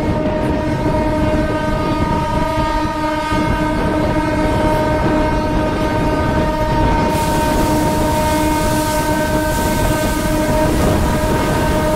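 Diesel locomotive's horn sounding one long, unbroken, steady blast over the rumble and clatter of the moving train, heard from inside a carriage it is hauling; a hiss of air joins about halfway through.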